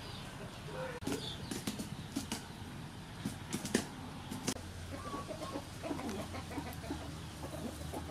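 Chickens clucking, with several sharp clicks and knocks in the first half.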